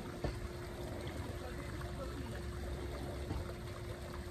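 Steady rushing background noise, like running water, with a faint steady hum underneath and a single sharp click about a quarter second in.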